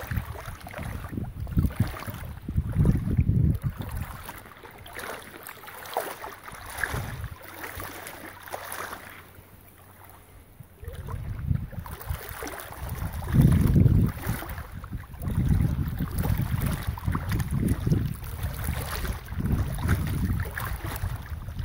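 Wind buffeting the microphone in irregular gusts over open water, easing for a couple of seconds about halfway through.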